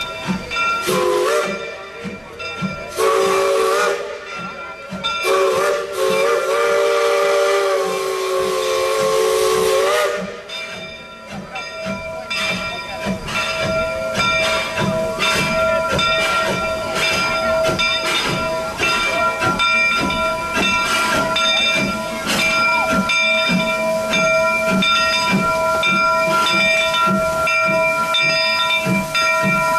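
Steam locomotive's chime whistle sounding a chord of several pitches: two short blasts, then a long blast of about five seconds that ends about ten seconds in. After that, steam hisses from the standing locomotive with a steady high tone and a regular low pulsing.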